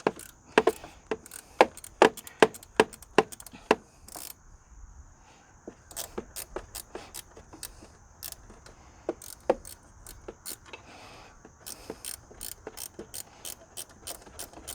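Ratchet wrench clicking as a bolt is run in: sharp, regular clicks about two to three a second for the first four seconds, then fainter, scattered clicks, with quicker runs of clicks near the end.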